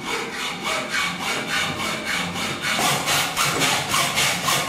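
Hacksaw cutting through a metal U-channel profile with steady back-and-forth strokes. The strokes grow louder and quicker a little past halfway, at about three a second.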